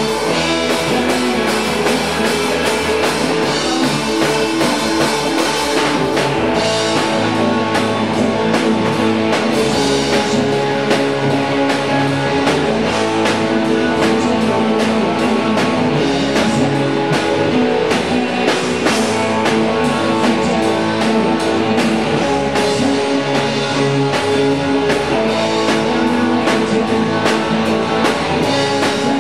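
Live band jamming a blues: electric guitars over a drum kit with cymbals, played together in a bare concrete garage.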